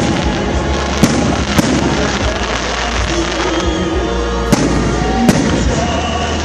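Fireworks display: sharp bangs of shells bursting about five times, over a continuous crackle, with music playing alongside.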